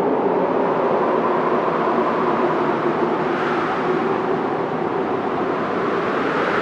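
Wind blowing steadily in a hollow, moaning rush, its pitch drifting slowly upward partway through.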